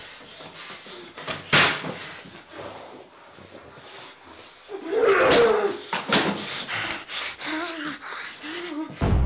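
A man choking and gasping, with strained, rasping groans and a loud gasping outburst about five seconds in, as though poisoned. Near the end, music with a deep drum comes in.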